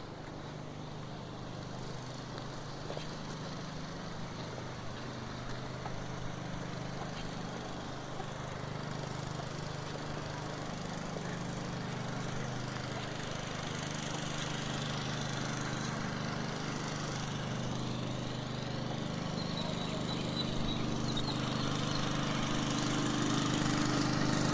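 An engine running steadily under a hiss, getting gradually louder.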